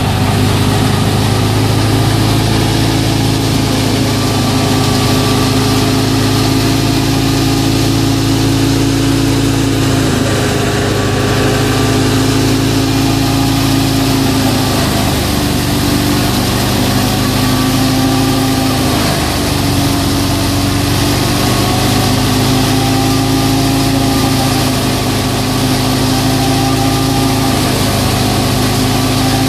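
FIAT 640 tractor driving a wheat thresher, the tractor's diesel engine and the threshing machine running together under load as a loud, steady drone. The engine pitch dips slightly and recovers a few times.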